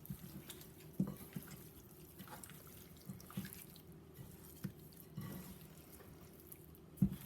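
Seasoned raw chicken pieces being mixed by hand: faint, irregular wet squishes and clicks, the loudest near the end.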